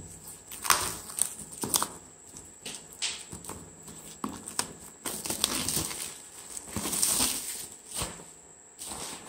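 Clear plastic wrapping crinkling and rustling in irregular snatches as it is handled and pulled off a cardboard product box.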